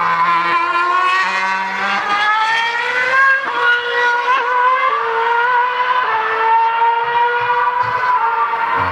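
Formula One car's 2.4-litre V8 engine running at high revs, its pitch climbing over the first three seconds, breaking off briefly, then holding high and steady.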